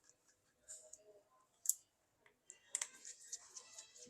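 Light clicks and taps of a small screwdriver and tiny screws being taken out of a smartphone's frame. A few single clicks, one sharp one about a second and a half in, then a quick run of small clicks near the end.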